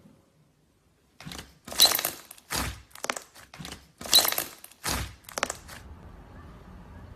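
Slime being pressed and squeezed by hand, with about ten loud, crackly squishes and pops over four seconds. A faint steady hiss follows.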